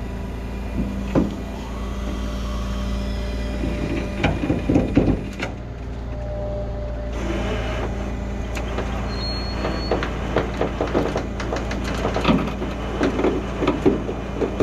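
Rollback tow truck's engine running at a steady hum. Over it come short knocks and clinks, a cluster about four seconds in and many more from about eight seconds on.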